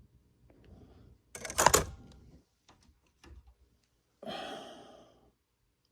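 Small metal tools being handled in a machinist's toolbox drawer: a loud clatter about a second and a half in, a few light clicks, then a scraping rattle near the end that fades out.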